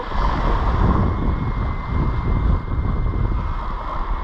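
Wind buffeting the microphone, with shallow seawater sloshing and splashing around wading feet.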